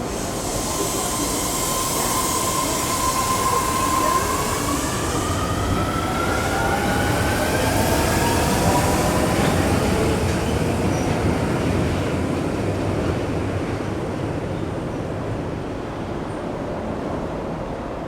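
Osaka Metro 30000A series subway train pulling out of the station. Its traction motor whine climbs in pitch as the train gathers speed, over the steady rumble of wheels on rail. A second rising whine starts partway through.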